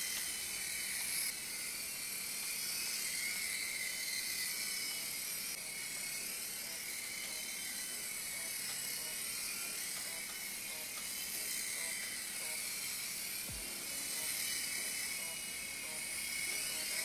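Steady high-pitched hiss of room tone, with one faint low knock about thirteen seconds in.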